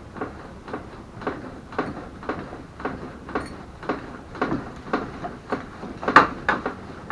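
A steady series of short knocks, about two a second, the loudest one near the end.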